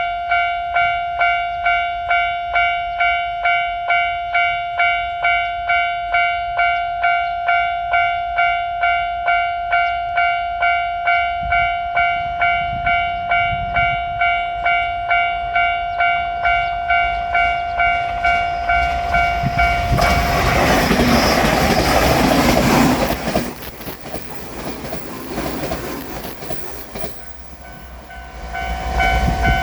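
Japanese level-crossing warning bell ringing in a steady beat, a little under two strokes a second. About two-thirds of the way in, a JR Shikoku 8000 series limited-express electric train passes over the crossing, its loud rail noise drowning the bell for a few seconds before fading. Near the end the crossing bell starts ringing again at a slightly different pitch, as it does when a second train is due.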